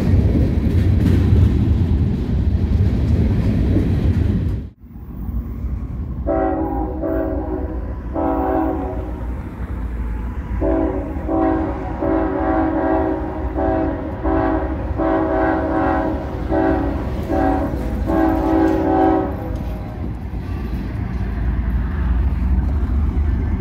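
A freight train rolls past with a heavy low rumble and wheel clatter. After a cut, an approaching Ferromex diesel locomotive sounds its multi-note air horn in a string of long and short blasts lasting about thirteen seconds, over the rumble of its engine.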